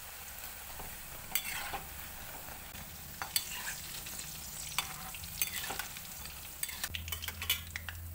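Cauliflower fritters deep-frying in hot oil in a metal kadai, a steady sizzle, while a metal spatula and wire skimmer stir them and lift them out with sharp clinks against the pan, coming thicker near the end.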